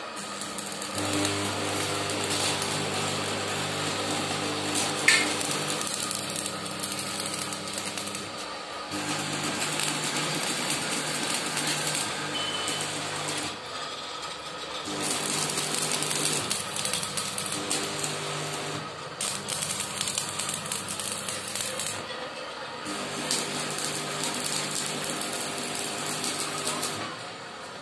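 Arc welding on steel window-grille frames: the electrode arc crackles and hisses while the welding machine hums steadily under load. It comes in four spells of several seconds with short breaks between, and there is one sharp click about five seconds in.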